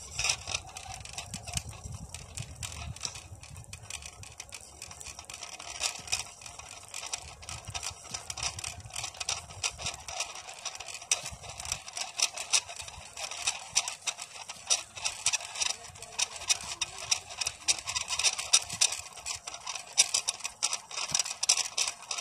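Homemade potato-hauling winch running, its rope and cable rattling through the mechanism in a fast, continuous stream of clicks that grows louder about halfway through.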